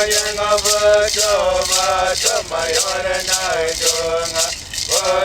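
A hand rattle shaken in a steady beat under a voice singing a chant in long, held, wavering notes.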